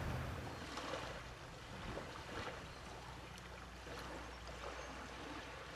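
Quiet ambience of a shallow tidal flat at low water: an even soft hiss of water and breeze, with a few faint ticks scattered through it.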